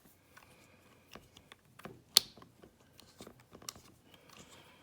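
Scattered small metallic clicks and taps of a flathead screwdriver being handled and fitted against a Schlage padlock's metal body. One sharp click about two seconds in is the loudest.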